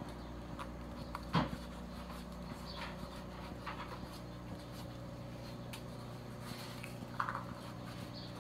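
Hands working a plastic helmet with a cloth or pad: scattered short scuffs and rubs, with a sharper knock about a second and a half in, over a steady low hum.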